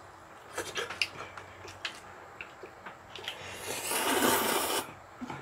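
Eating at the table: scattered light clicks and taps, then about a second of loud noodle slurping near the end, as a mouthful of spicy mussel ramen is drawn in.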